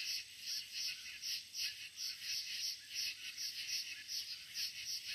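Night chorus of calling frogs and insects: rhythmic high calls pulsing two to three times a second over a thin, steady, high trill.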